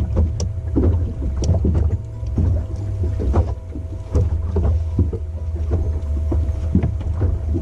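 Low wind rumble on the microphone aboard a fishing boat, with a faint steady hum and frequent short knocks and thumps from the walleye just landed being handled in the boat.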